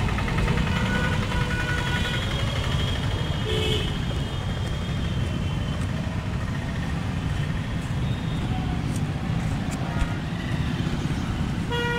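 Steady low rumble of a moving vehicle, engine and road noise heard from on board. Faint horn toots sound in the first few seconds.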